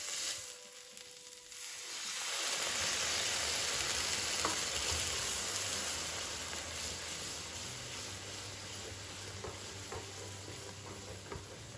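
Water poured into a small frying pan of onion and tomato paste fried in hot oil hisses and sizzles. The sizzle swells about two seconds in and slowly dies down as a spoon stirs the mixture into a sauce.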